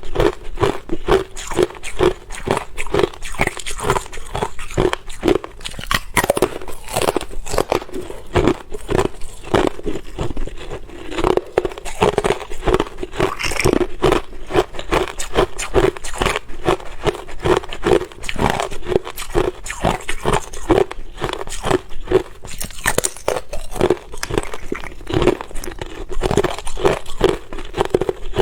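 Ice being bitten and chewed close to the microphone: rapid, continuous crunching of hard ice between the teeth.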